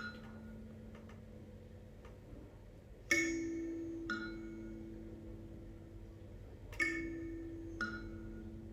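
Thumb piano (kalimba) plucking slow single notes that ring and fade: one at the start, then two pairs of notes about a second apart.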